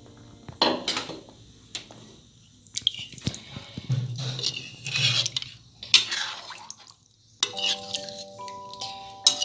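A spoon knocking and clinking against a cooking pot, with wet sloshing of a thin, watery chicken curry gravy, and a sharp knock about six seconds in. Gentle background music with held notes comes in near the end.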